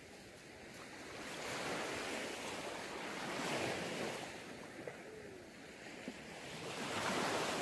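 Sea waves washing onto a beach: a soft, steady rushing that swells and eases off about three times.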